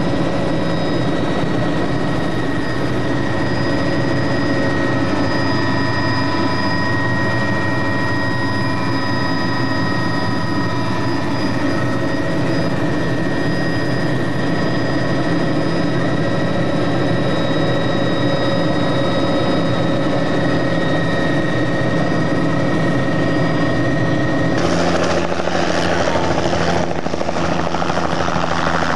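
Bell 206 JetRanger turbine helicopter in flight, a steady drone of rotor and engine with a constant high turbine whine. About 25 seconds in, the sound cuts abruptly to the helicopter heard from outside as it hovers in low to land: a louder, rougher rotor rush without the clear whine.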